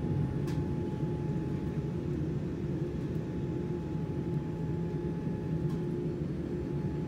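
Steady low rumble and hum of an airliner's cabin, with a faint steady whine above it.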